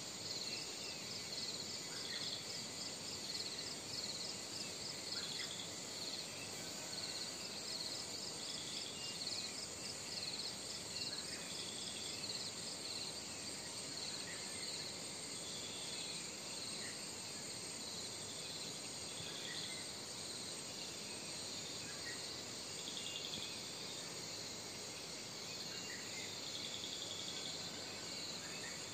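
Insects chirping in rapid pulsed trills that repeat every second or so, over a steady outdoor hiss, with a few faint short chirps in between.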